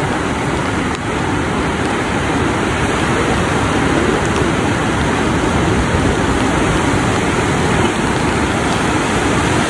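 Sea surf breaking and washing up the beach: a steady, loud rush of water.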